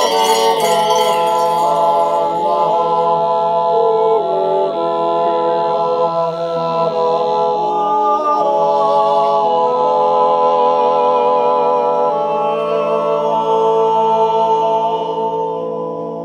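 A group of Silvesterchläuse singing a Zäuerli, the wordless Appenzell yodel: several men's voices holding long chords that shift step by step. Bells ring out briefly at the start, and the singing grows quieter near the end.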